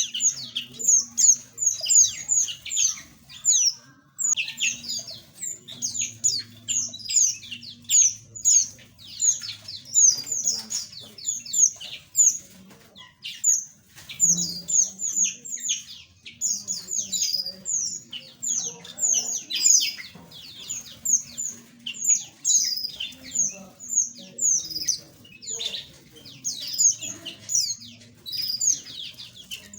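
A flock of small aviary birds chirping continuously, many quick high-pitched calls that sweep downward in pitch and overlap one another.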